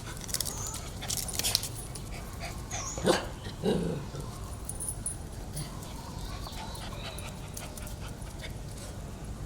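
Pet dogs making brief sounds, with two short louder calls about three seconds in, among scattered clicks and knocks.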